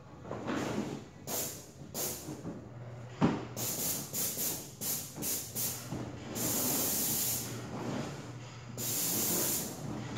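Paint spraying in bursts of hissing spray: several short bursts in quick succession, then two longer ones of about a second each. There is a sharp knock about three seconds in and a faint low hum underneath.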